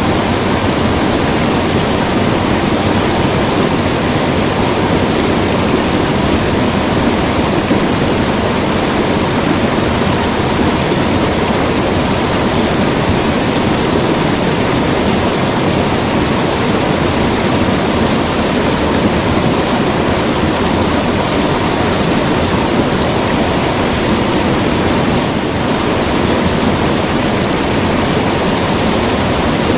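Waterfall rushing steadily, a loud and even roar of falling water with no breaks.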